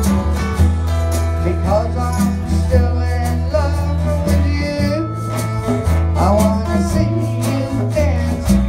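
Country-style music with guitar and a steady bass line, with a voice singing along.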